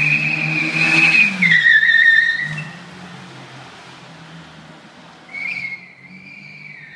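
1988 Mercedes 190E drifting: its tyres squeal loudly over the engine, whose revs rise and then fall. The squeal drops in pitch about a second and a half in and dies away by about two and a half seconds. A fainter, shorter squeal comes back a little after five seconds.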